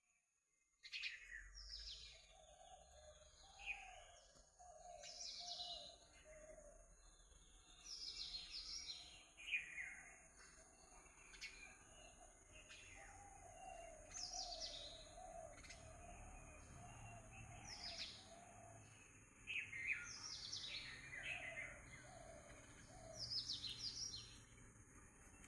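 Birdsong: several birds chirping and calling with quick, high, downward-sweeping notes, over a lower, steadily repeating chatter. It starts after a brief silence about a second in.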